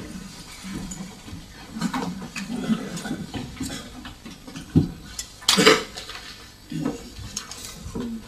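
Scattered knocks, clinks and rustling of people moving about, with a faint murmur of voices underneath; the loudest knocks come a little before halfway and just after.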